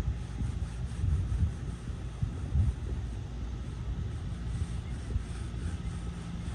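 A steady low rumble with irregular louder swells.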